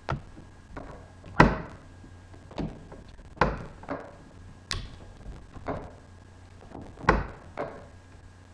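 Handling knocks and clunks from a camera and its wobbly stand being grabbed and set back in place, with fingers close over the device. About ten separate irregular knocks, the loudest about one and a half seconds in.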